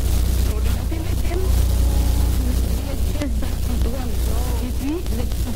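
Wind buffeting the phone's microphone in a steady low rumble, with people's voices calling out over it from about a second in, rising and falling in pitch.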